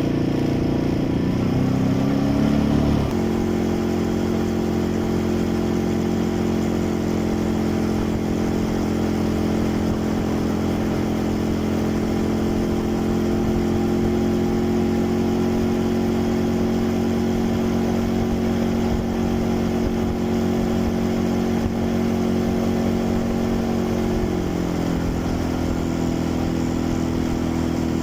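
Quad bike engine running under way at steady revs. Its pitch steps up about three seconds in and drops slightly near the end.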